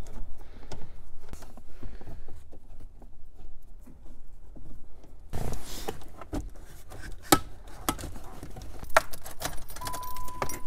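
Plastic and metal clicks, knocks and scraping as the factory radio of a Nissan Sentra is worked loose and slid out of the dash, with a rustling scrape about five seconds in and several sharp clicks after it. A steady high tone starts near the end.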